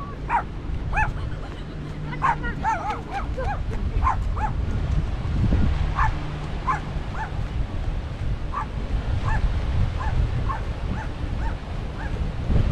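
A dog whining and yipping in short rising-and-falling cries, over and over, over a steady low rush of water pouring through a weir spillway.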